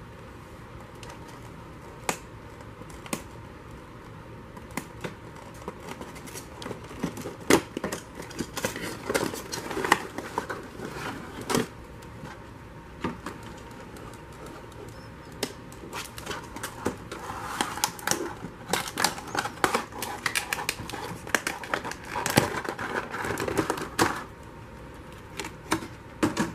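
Cardboard box and clear plastic packaging of a die-cast model aircraft being handled: scattered taps, clicks and knocks, then plastic crinkling and rustling in bursts from a little past halfway.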